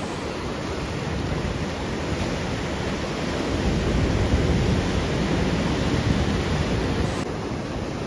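Strong sea waves surging and washing against the rocks, a steady rushing surf that swells louder around the middle.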